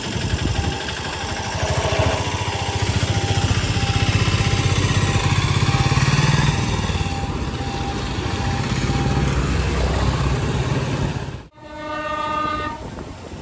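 Vehicle engines running and rumbling at a railway level crossing, with low pulsing engine throb. After a sudden cut, an Indian Railways train horn sounds once from far down the track for about a second near the end.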